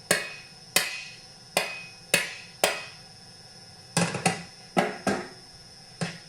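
About ten light, sharp taps on a McCulloch Super Pro 125 chainsaw's side case, bumping it back into place on its silicone bead. The taps come at an uneven pace, some in quick pairs, each ringing briefly.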